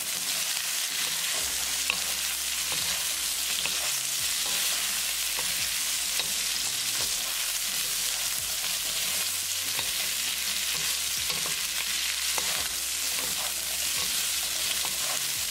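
Asparagus and sliced red onion sizzling steadily in hot oil in a karahi while being stir-fried with a wooden spatula, with a few light ticks of the spatula against the pan.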